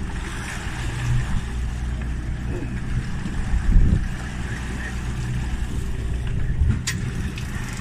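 Boat engine running steadily with a low hum, under a wash of wind and water noise. A single sharp click near the end.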